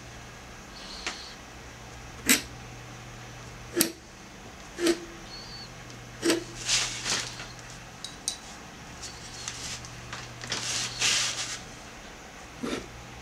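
A calligraphy pen scratching and tapping on heavy paper in a series of short strokes, with a longer scratchy stroke about ten seconds in. A steady low hum runs beneath.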